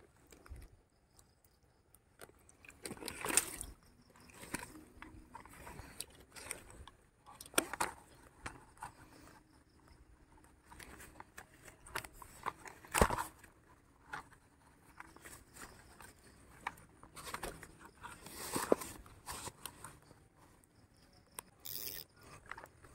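Close handling noises of a rubber-mesh landing net and fishing gear: scattered scrapes, rustles and clicks, with a sharp knock about 13 seconds in the loudest.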